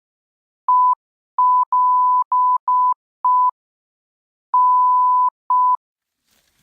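Censor bleeps: a steady single-pitch beep tone in eight pulses, some short and some long, with dead silence between them.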